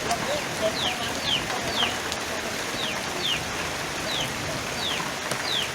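Steady rain falling, with a bird giving a series of short, falling peeps, about two a second.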